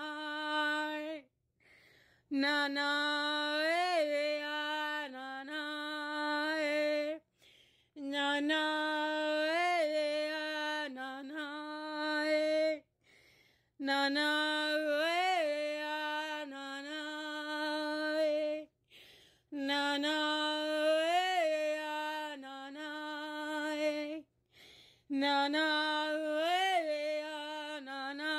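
A woman's solo, unaccompanied light-language chant on repeated syllables like "ana na e". She holds one steady note with a short rising-and-falling flourish in the middle of each phrase, five phrases of about five seconds each with short breaks for breath between them.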